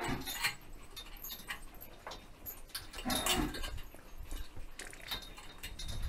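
Two short animal cries, one at the very start and one about three seconds in, lasting about half a second and bending in pitch, over scattered knocks and rustling.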